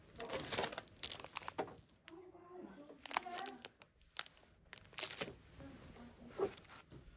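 Clear plastic packaging crinkling and rustling in quick crackles as packaged items are picked up and handled on a shelf.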